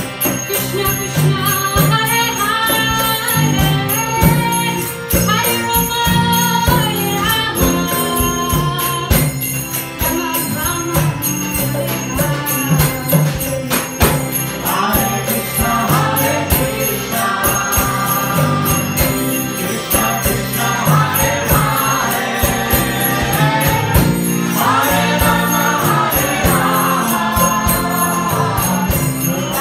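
Live kirtan band playing: drum kit and guitars keep a steady beat under sung vocals, with a bright jingling percussion running through. The singing grows fuller about halfway through.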